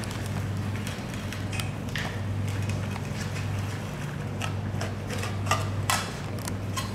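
A large knife cutting along a bluefin tuna's back: scattered short scrapes and clicks of the blade on the skin and the wooden board, with two sharper clicks near the end, over a steady low hum.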